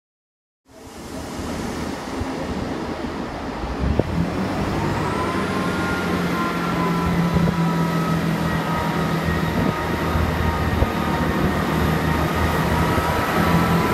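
Class 158 diesel multiple unit running into the station: a steady diesel engine drone with a higher whine over it, growing louder as the train nears.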